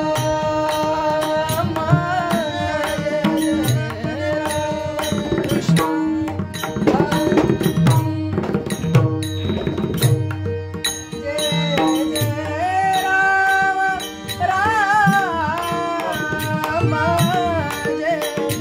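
Pakhwaj (mridang) playing a dense rhythmic accompaniment over a steady held drone in a devotional bhajan. A classical-style singing voice comes in about two-thirds of the way through with ornamented, gliding lines over the drumming.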